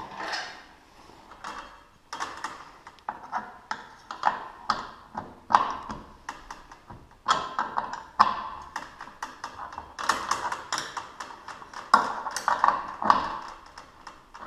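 Irregular metallic clinks, taps and knocks with a short ring, from hand work with tools on a garage door opener's loose drive chain.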